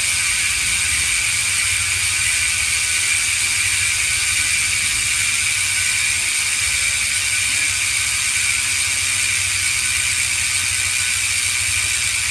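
Traction Factorie 6-pawl mountain-bike freehub freewheeling as the rear wheel spins, its pawls clicking over the ratchet ring in a fast, steady buzz.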